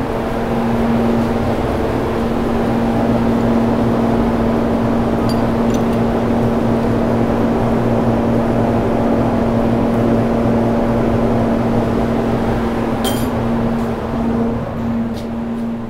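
Chevrolet 327 small-block V8 idling steadily on an engine dynamometer, with a few light metallic clicks about five seconds in and again near the end.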